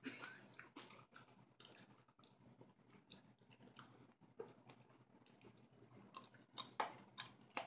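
Faint, irregular mouth sounds of a person sucking on and crunching a blue raspberry Blow Pop lollipop: soft wet clicks and crunches, a few louder ones near the end.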